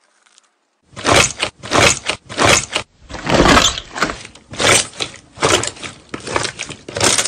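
Hands squeezing and kneading a large lump of puffy slime, giving a run of about eight squishing squelches, roughly one a second, starting about a second in and cutting off suddenly at the end.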